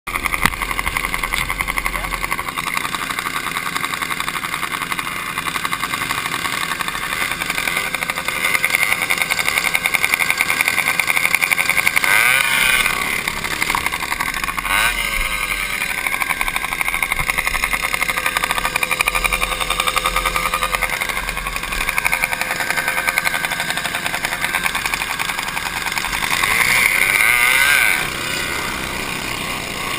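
Small engine of a motorized tandem bicycle running with a fast, steady buzz. It grows louder about a quarter of the way in as the bike pulls away, swoops up and down in pitch a couple of times around the middle, and drops off suddenly near the end.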